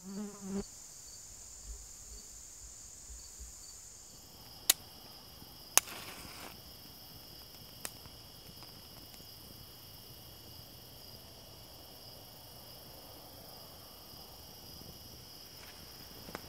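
Steady high-pitched trilling of an insect chorus; about four seconds in the chorus shifts to a lower pitch. Two sharp clicks stand out about a second apart, around five and six seconds in.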